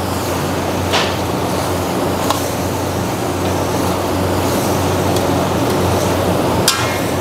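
Chicken leg pieces frying in oil with green chilli paste in a large steel wok, stirred and tossed with a long-handled metal ladle. The ladle clinks sharply on the pan about a second in, a little after two seconds, and near the end, over a steady low roar.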